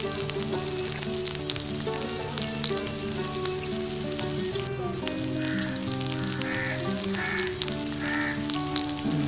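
Hot oil sizzling and crackling in a tiny kadai as batter-coated green chillies (mirchi bajji) fry, over steady background music. Four short raspy calls sound in the second half.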